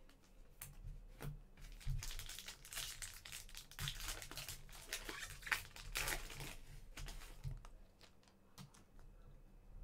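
Foil trading-card pack wrapper crinkling as it is torn open, from about two seconds in until about seven and a half seconds, with scattered sharp clicks of cards being handled before and after.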